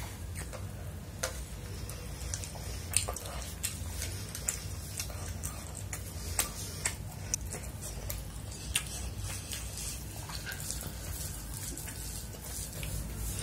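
Close-miked chewing mouth sounds while eating chili chicken and fried rice: irregular sharp, wet clicks and smacks, over a low steady hum.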